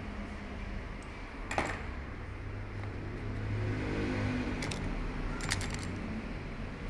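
Small steel parts and tools clinking while a diesel injection pump is taken apart: one sharp clink about a second and a half in, another past the halfway point, then a quick run of clinks soon after, over a steady low hum.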